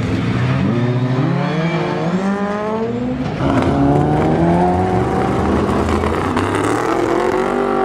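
Rallycross race car engines accelerating hard, the pitch climbing, dropping sharply at a gear change a little after three seconds in, then climbing again.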